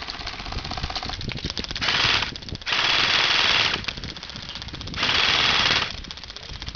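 Airsoft rifle firing full-auto in three rattling bursts: a short one about two seconds in, a longer one of about a second right after, and another about five seconds in.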